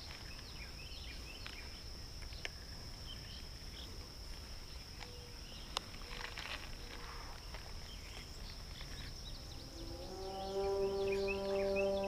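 Riverside ambience: a steady high-pitched insect drone with faint scattered bird chirps over a low river rumble. About ten seconds in, a steady pitched tone with overtones starts and holds.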